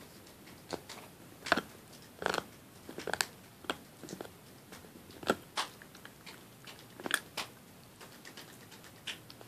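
Dog gnawing a Nylabone chew bone: irregular sharp clicks and crunches of teeth on the hard bone, about one every half second to second, thinning out near the end.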